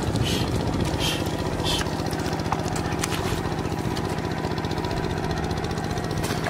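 Small engine of a two-wheel hand tractor running steadily, with a fast even beat, and a few short rustles in the first two seconds.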